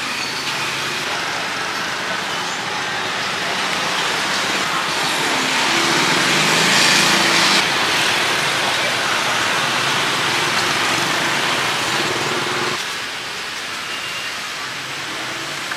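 Steady street traffic noise with a vehicle engine passing, swelling to its loudest about seven seconds in and dropping away after about thirteen seconds.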